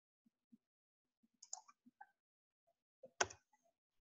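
Faint, scattered clicks of a computer mouse and keyboard keys as a value is typed in, with a louder click about three seconds in.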